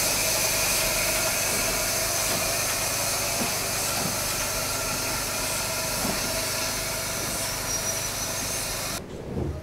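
Small steam locomotive standing at rest and venting steam: a steady, loud hiss that cuts off suddenly near the end.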